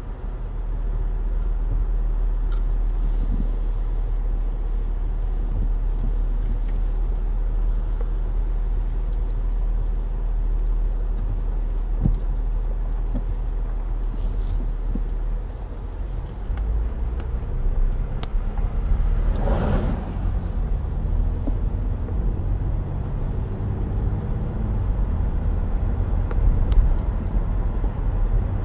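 Car interior noise while driving on a wet road: a steady low rumble of engine and tyres. A brief swell of noise rises and fades about two-thirds of the way through.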